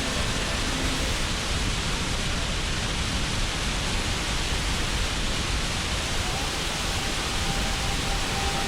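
Waterfall's rushing water: a steady, even hiss with no break or change.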